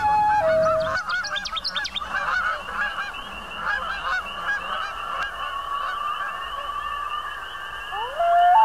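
Background music with a held flute-like note, which gives way after about a second to a dense run of short, overlapping honking calls like a flock of geese. Near the end a rising glide leads back into the flute melody.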